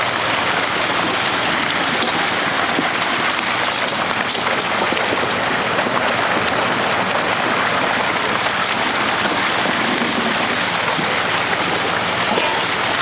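Steady rush and splash of water pouring out of a fish-stocking truck's tank down the release chute into the pond, carrying trout.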